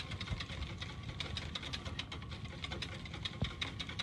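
Whisk beating eggs in a stainless steel bowl, a rapid, steady clicking of the wires against the metal, while hot milk is poured in to temper the eggs.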